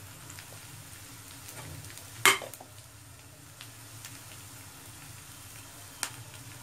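Onions, ginger-garlic paste and spices sizzling steadily in hot oil in a kadai, with one sharp knock of a spoon against the pan about two seconds in and a lighter click near the end.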